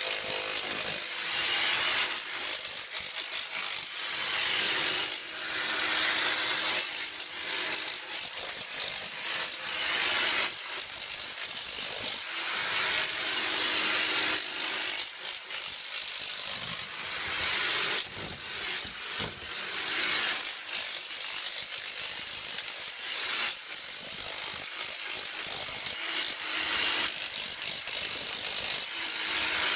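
Electric demolition hammer chiseling up saltillo tile: rapid hammering that runs in spells of a few seconds with short breaks, the chisel cracking tile loose while the shroud's vacuum draws in the chips and dust.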